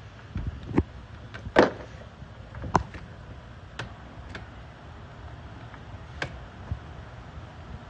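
Scattered light clicks and taps, several of them at uneven intervals, the loudest about a second and a half and three seconds in, as wires are handled and fitted into an electrical pressure switch. A steady low hum runs underneath.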